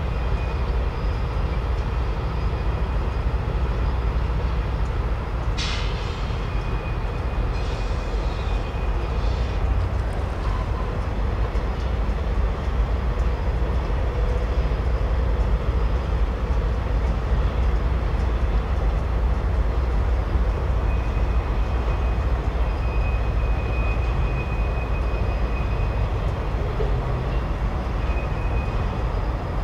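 Distant diesel freight train crossing a long stone arch bridge: a steady low rumble of locomotives and rolling freight cars. A short sharp sound comes about five and a half seconds in, and a faint high-pitched squeal comes and goes twice.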